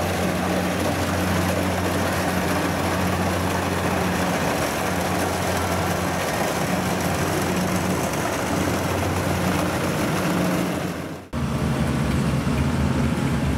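Kubota DC-70 combine harvester's diesel engine running steadily under load while cutting and threshing rice, a steady engine drone under a broad threshing noise. About eleven seconds in, the sound breaks off abruptly and resumes with a slightly different hum.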